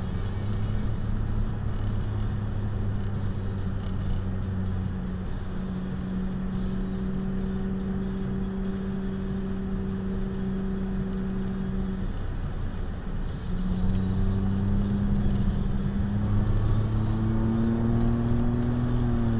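Car engine hum and road noise heard inside the cabin, steady for the first part; around two-thirds of the way through it eases off, then the hum climbs in pitch as the car speeds up and drops back right at the end.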